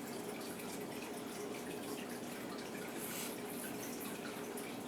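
Steady background hiss with a faint low hum underneath, unchanging throughout.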